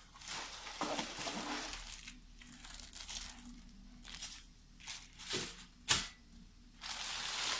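Thin plastic takeout bag crinkling and rustling in repeated bursts as hands pull it open around a cardboard food box, with a sharp click about six seconds in.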